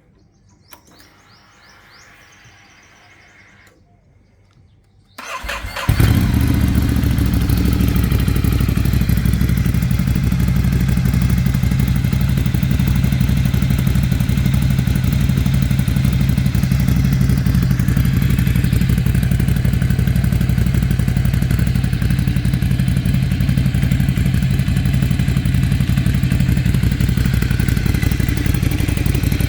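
Ducati Monster 797's air-cooled L-twin engine started on the electric starter about five seconds in, catching almost at once and settling into a steady idle.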